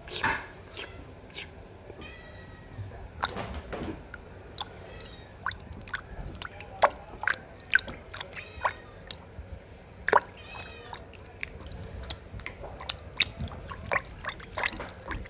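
A kitten pawing at water: a stream of small splashes, drips and clicks, with a few short mews in between.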